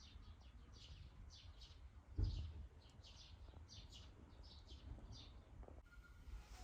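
Small birds chirping: short high notes repeated every half second or so, many in quick pairs, with a dull low thump about two seconds in.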